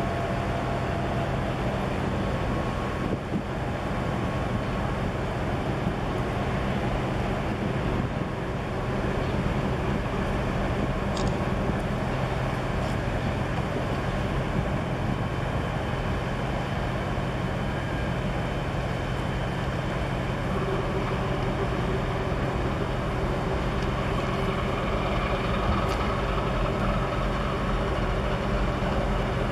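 Large container ship passing close, its engines and machinery giving a steady low drone.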